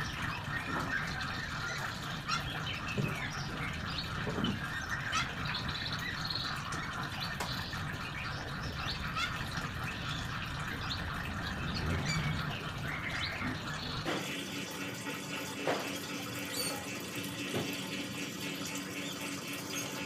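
Petrol trickling steadily from a motorcycle fuel tank through a hose into a plastic bottle, with small chirping squeaks over it. The tank is being drained to check it for water that got in.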